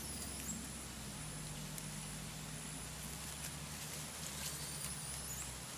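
Forest ambience: a steady high whine with a few brief high chirps, near the start and again around four to five seconds in, and scattered faint ticks, over a low steady hum.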